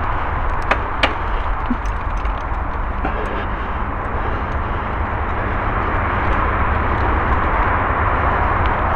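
Mountain bike riding a dirt forest trail, heard from a camera on the bike or rider: a steady rush of wind on the microphone and tyre rolling noise, with a few sharp clicks and rattles about a second in.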